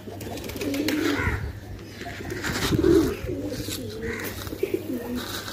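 Feral pigeons cooing, low wavering calls repeated and overlapping.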